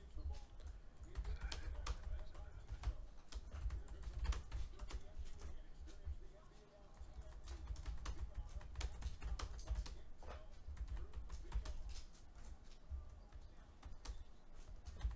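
Typing on a computer keyboard: a run of quick, irregular key clicks with short pauses, over a low rumble.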